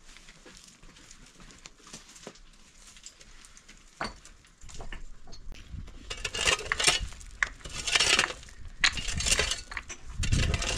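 A metal shovel scraping and digging into stony, gravelly ground in a run of gritty, irregular strokes with clinks of metal on stone, beginning about four seconds in after a quieter stretch of faint clicks.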